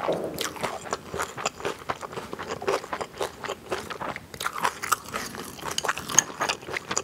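Close-miked chewing of sliced pigs' feet and crisp raw vegetables: wet, crunchy bites and crackles in a quick, uneven rhythm.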